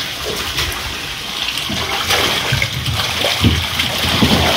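Flowing, rushing water with a steady hiss and splashing, with a few low thumps about halfway through and near the end.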